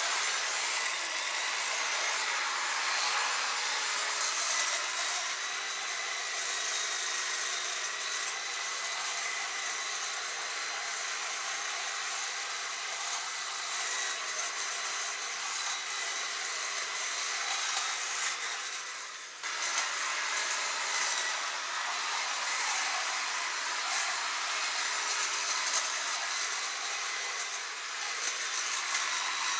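Electric hedge clippers running and cutting hedge branches: a steady buzzing whine with irregular sharp snaps as stems are cut. The sound dips briefly about two-thirds of the way through, then carries on.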